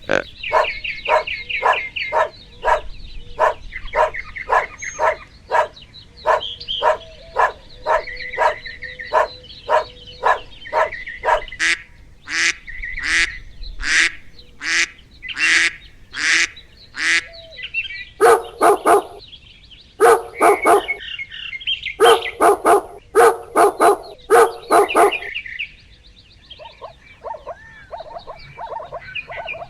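A domestic animal calling over and over in short, loud calls, about two a second, louder from about 12 seconds in and coming in quick clusters near the middle.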